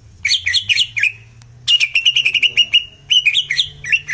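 Cucak ijo (greater green leafbird) song: three loud bursts of quick, sharp chirping notes, the middle one a rapid trill.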